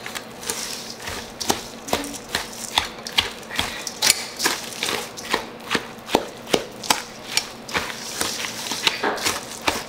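Wooden spoon stirring a stiff breadcrumb and cheese stuffing in a stainless steel bowl: a steady rhythm of clacks against the bowl, about two or three a second, with a scraping, mashing sound between strokes.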